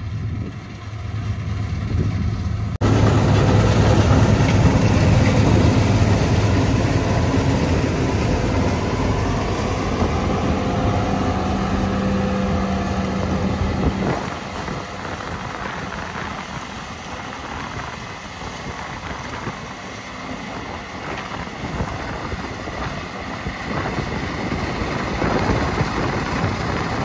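Engine noise of running farm machinery, a steady low hum with broad mechanical noise. About three seconds in it jumps abruptly louder, and it eases off again about fourteen seconds in.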